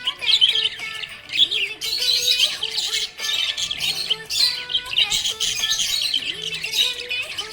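Small pet parrots chirping and chattering without a break, with music playing underneath.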